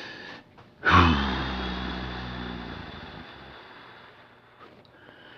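A single sudden strike that rings on in steady tones and fades slowly over three to four seconds, after a brief rush of noise at the start.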